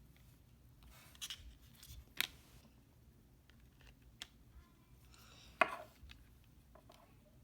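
Scattered small clicks and taps of the iPhone 6 Plus display being pressed and snapped down into the phone's frame as the phone is closed up, with two sharper clicks about two seconds in and near the five-and-a-half-second mark.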